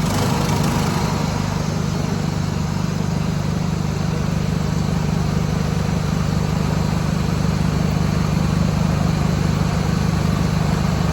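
1976 John Deere 300 lawn tractor's engine running steadily at an even speed.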